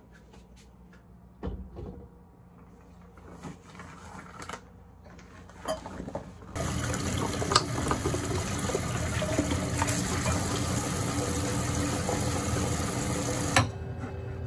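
A few light clicks and knocks, then water running steadily from a tap into a container or sink for about seven seconds, cutting off suddenly near the end.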